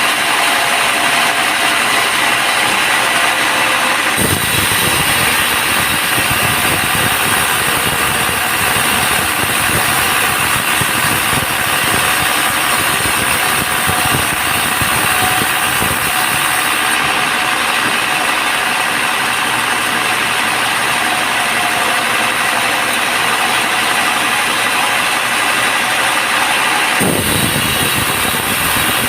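Bandsaw sawmill running: loud, steady machine noise. About four seconds in a deeper, rougher layer joins it, and it drops away again near the end.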